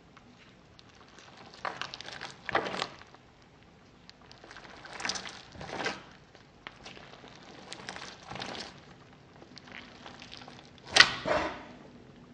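Homemade balloon stress ball squeezed and pressed by fingers on a tabletop: the rubber skin rubs and squishes in several short bursts, the loudest near the end.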